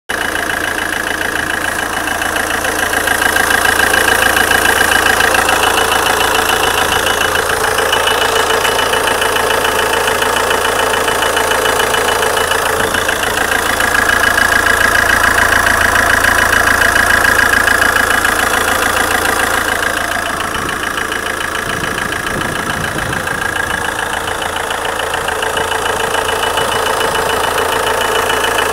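A 1.9 Multijet 16V 150 hp four-cylinder turbodiesel running steadily with a fine, rapid rattle, and a high tone that swells twice and fades. The owner presents it as a strange noise from the engine.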